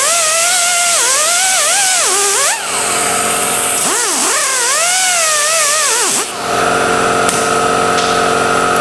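Angle grinder with an 80-grit disc grinding down a weld bead; its whine wavers up and down in pitch as it bogs under load and lets off. It dips twice, and from about six seconds in it runs at a steady pitch.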